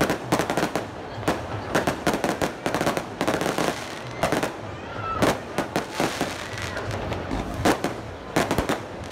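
Fireworks going off in a rapid, irregular string of sharp bangs and crackles, several a second.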